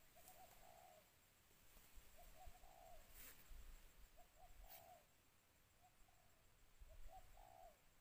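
Spotted dove calling: faint phrases of a few short coos ending in a longer note, repeated about every two seconds. A couple of sharp clicks come midway.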